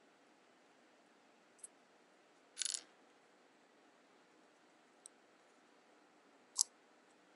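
Faint small clicks and a short scratchy scrape as a thumbtack is pushed through the hole in an Opendime bitcoin stick against its little chip, breaking the seal. The scrape about two and a half seconds in is the loudest, with a sharp single click near the end.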